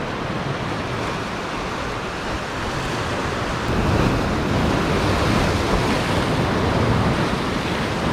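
Ocean swell surging and breaking against a rocky shore, a steady wash of surf that builds louder about halfway through.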